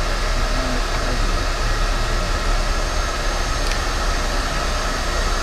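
A steady, even rushing noise that holds at one level throughout, with no rhythm or change in pitch.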